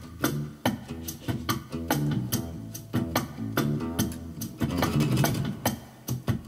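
Improvised bass line on a short-scale Ibanez Mikro electric bass over a drum-machine beat, with sharp hits about three a second and a busier stretch about five seconds in.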